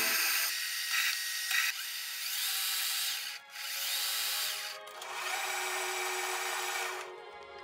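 A hand file and deburring tool scraping across the freshly cut threads of a metal rod spinning in a lathe, deburring the threads. It is a steady scraping hiss that breaks off briefly twice and stops about seven seconds in.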